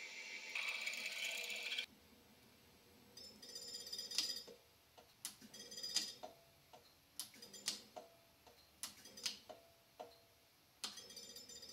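Drill bit cutting into a metal block held in a machine vise: a faint steady hiss, then a dozen or so light, irregular metallic ticks and clicks, each with a short ring, and the faint hiss again near the end.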